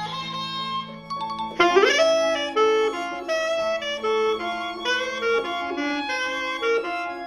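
Music led by a saxophone playing a melody of short and held notes, with a quick scoop up into a note about two seconds in.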